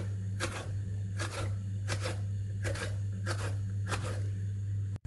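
A kitchen knife slicing a green pepper into strips on a wooden cutting board: about seven crisp cuts, each ending in a tap of the blade on the board, at a steady pace of roughly one every 0.7 seconds, over a steady low hum.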